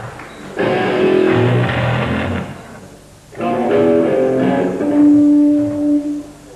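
Distorted electric guitar played live by a grindcore band: two bursts of chords with a brief break between them, the second ending on a long held note that cuts off near the end.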